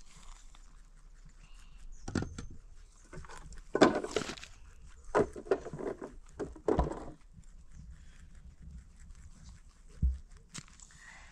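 Farm animals bleating several times in short calls, the loudest about four seconds in, with a single low thud near the end.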